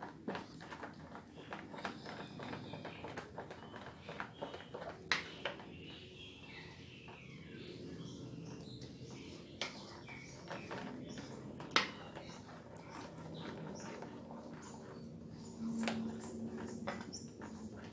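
Wooden spatula stirring a thick flour-and-hot-water dough in a stainless steel bowl: sticky scraping and squelching with irregular knocks of wood on metal, the sharpest about five, ten and twelve seconds in.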